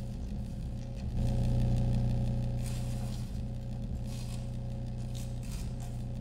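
Low, steady electronic drone from live electronics sonifying a performer's body signals, swelling louder about a second in and easing back. Soft scraping noises come in a few times over it.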